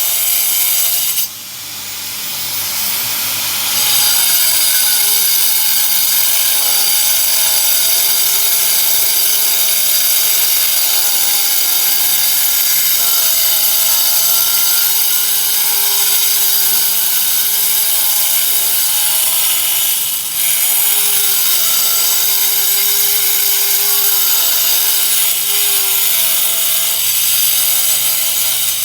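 Handheld power tool running continuously while cutting, its motor whine wavering in pitch as the load changes. The whine dips sharply about a second in and climbs back up to speed over the next few seconds, then dips briefly again about two-thirds of the way through.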